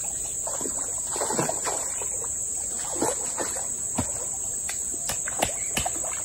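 A hooked fish thrashing at the surface of shallow stream water: a run of sharp splashes, with a steady high insect drone behind.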